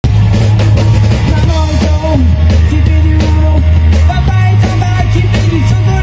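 Rock band playing loudly: electric guitar, heavy bass and a steady drum beat, with a man singing over it.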